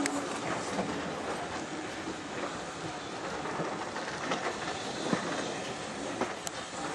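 Railway carriage running along the track, its wheels clicking and knocking irregularly over rail joints under a steady rumble, heard from aboard the moving train.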